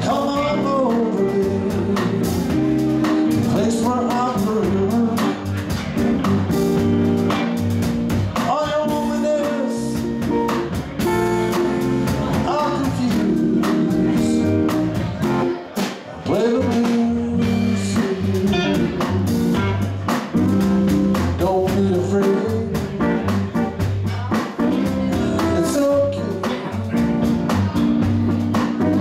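Live band playing a blues number: electric guitars with bending lead notes over a repeating low bass line and a drum kit.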